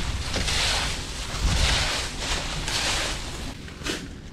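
Footsteps crunching through dry fallen leaves, about one step a second, with wind rumbling on the microphone. One sharp click near the end.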